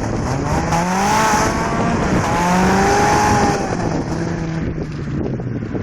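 Volkswagen Corrado's 1.8-litre 16-valve four-cylinder engine accelerating hard: its pitch climbs, dips briefly about two seconds in, climbs again to its loudest, then falls away to a steadier lower note.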